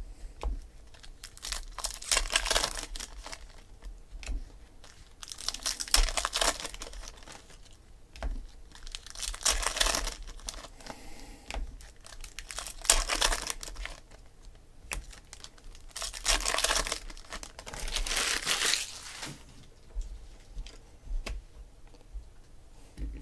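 Baseball card pack wrappers crinkling and tearing open, and cards being flicked through and stacked by hand, in a series of bursts of a second or so with quieter gaps between.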